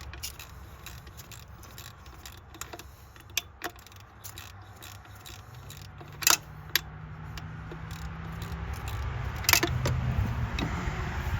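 A ratchet and socket working a tight coil pack bolt out of dirty threads: irregular clicking with a few loud metal clinks, the loudest near the middle and about two seconds before the end.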